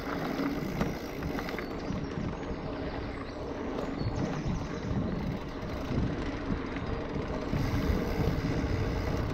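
Mountain bike descending a dirt singletrack: tyres rolling over the ground and the bike rattling with scattered clicks over bumps, under a steady low rumble of wind on the microphone.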